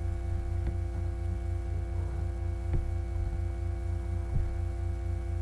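Steady electrical mains hum and buzz picked up by the recording microphone, made of several steady tones, a sign of the poor microphone condition. Three short faint clicks break through it.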